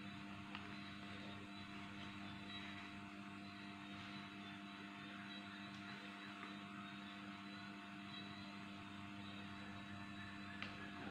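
Steady electrical hum under faint rustling and creasing of a sheet of paper being folded and pressed flat by hand, with a couple of small clicks.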